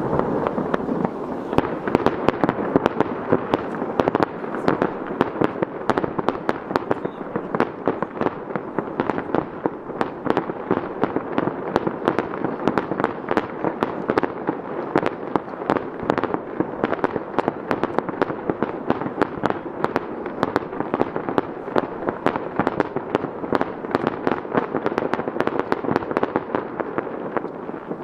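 Fireworks display: a dense, continuous barrage of shell bursts, several reports a second, over an unbroken rumble.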